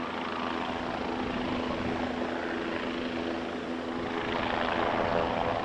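MQ-8C Fire Scout unmanned helicopter in flight: a steady rotor and turbine sound with a constant hum, growing a little louder about four and a half seconds in.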